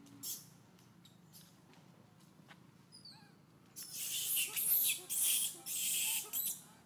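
Young long-tailed macaque crying: a few faint squeaks about three seconds in, then a run of loud, harsh, high-pitched screams in several bursts from about four seconds in, the distress cries of a hungry, upset baby monkey.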